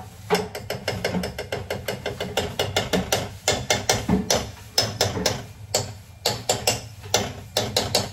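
Steel ladle scraping and clinking against a kadhai while stirring ghee, in quick uneven strokes of several a second.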